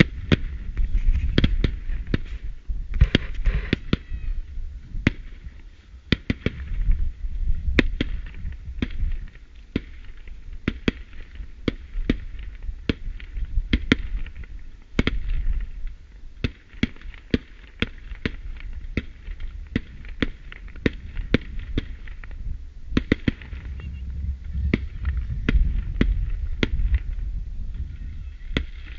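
Professional fireworks display: aerial shells bursting in a steady run of sharp bangs, about one to two a second, with stretches of crackling stars, over a low rumble.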